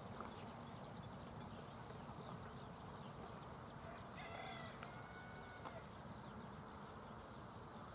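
Faint outdoor ambience: a low steady rumble, with a few distant bird calls about four to five seconds in.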